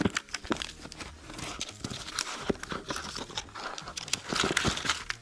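Clear protective plastic film being peeled off an Apple power adapter, crinkling and crackling with irregular sharp clicks, most dense about four and a half seconds in.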